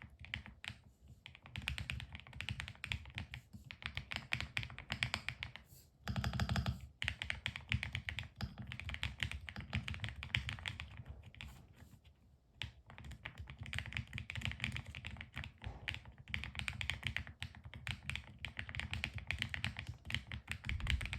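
Fast typing on a Qsenn aluminium-case mechanical keyboard: a dense stream of key clacks with a couple of brief pauses, and a louder flurry about a third of the way in.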